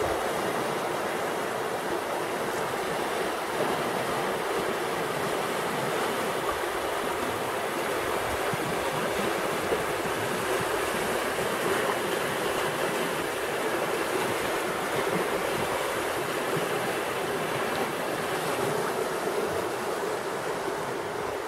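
Steady rush of river water running over a shallow rocky riffle. The river is running high after recent rain.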